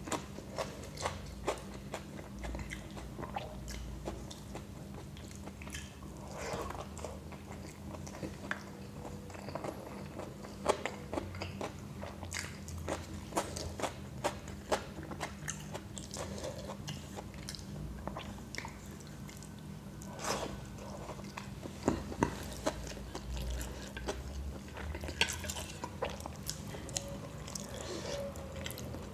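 A person chewing and eating close to the microphone, with frequent irregular crunches and clicks of biting.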